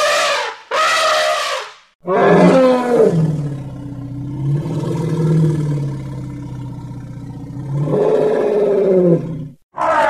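Elephant calls: two short, higher calls, then one long, low call lasting about seven and a half seconds that wavers up and down in pitch, and the start of another short call at the very end.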